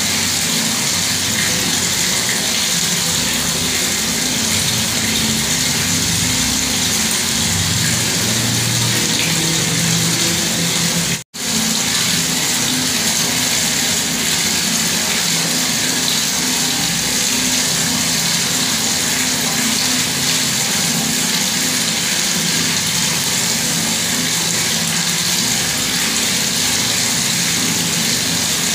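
Bathroom tap running in a steady, even stream of water. It cuts out for a split second about eleven seconds in, then runs on unchanged.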